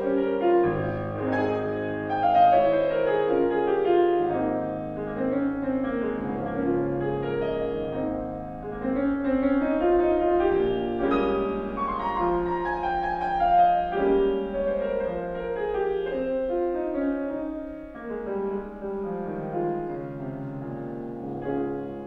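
Grand piano played solo in classical style: flowing runs of notes that rise and fall over sustained chords, growing quieter toward the end.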